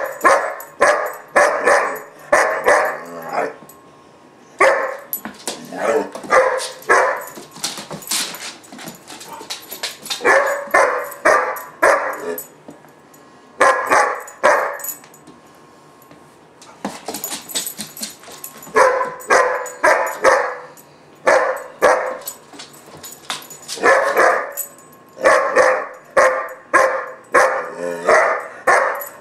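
German shepherd puppy barking in a tantrum: volleys of several quick, loud barks with short pauses between them. It is frustration or demand barking.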